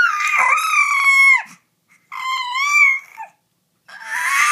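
Baby making high-pitched, drawn-out squealing coos with a wavering pitch. One held squeal ends with a drop about a second and a half in, a second follows about two seconds in, and a third begins near the end.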